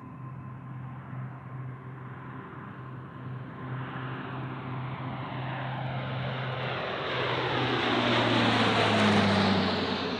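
Fighter jet engine noise building over several seconds as the jet passes close by, loudest about nine seconds in and then starting to fade.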